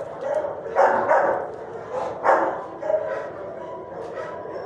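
A dog barking: a few loud, short barks, the loudest about a second in and just after two seconds, over a constant background din.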